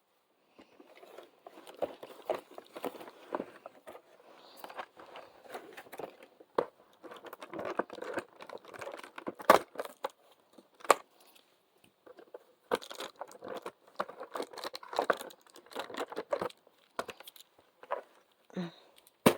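Close-up handling of small toy packaging: crinkling and tearing with scattered sharp clicks and taps, in bursts broken by short pauses.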